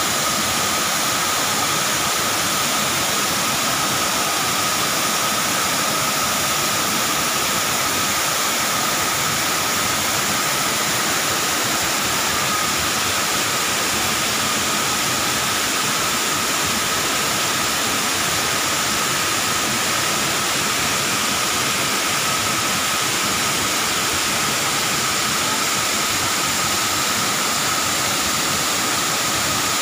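Waterfall pouring into a rock pool: a steady, even rush of water.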